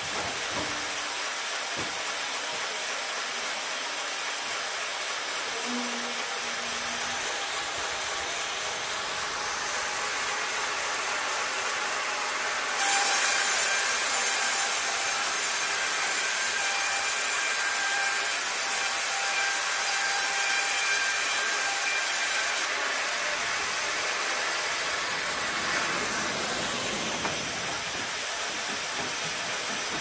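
Bongioanni 1300 multi-head sawmill machine running with a steady hiss as boards are sawn. About a third of the way through, it suddenly gets louder and harsher, with a steady whine, for about ten seconds, then drops back.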